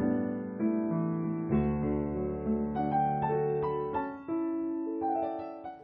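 Background music played on a keyboard: a slow melody of held notes that change step by step.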